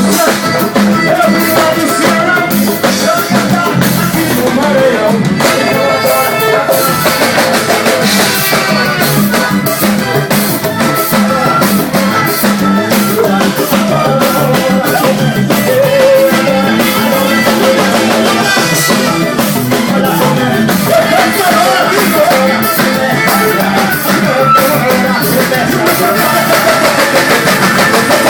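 Live forró band playing an instrumental passage with drums at a steady beat.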